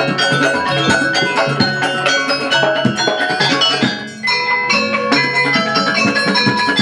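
Javanese gamelan ensemble playing: bronze keyed metallophones (saron) struck with mallets over a kendang hand drum. The music thins briefly just after four seconds in, then carries on.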